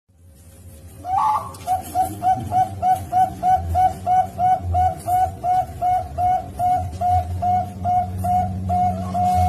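Zebra dove (Bangkok perkutut) singing a fast run of short, evenly spaced coo notes, about three to four a second, starting about a second in, over a low steady hum.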